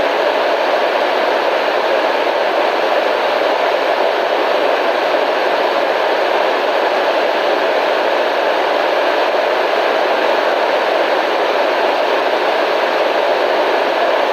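Constant radio static: an even, unbroken hiss with no change in level, fullest in the middle range and thin in the bass.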